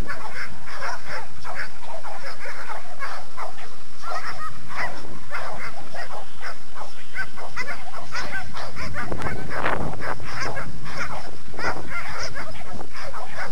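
Dogs barking repeatedly, the barks following one another in quick succession, with a louder stretch about nine seconds in.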